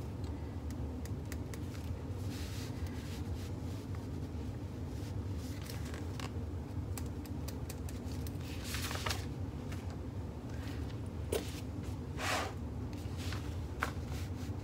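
Steady low room hum with scattered light scratching, rustling and tapping as a paper pattern piece and fabric bag panels are handled and marked with a pen; the loudest scratches come about nine and twelve seconds in.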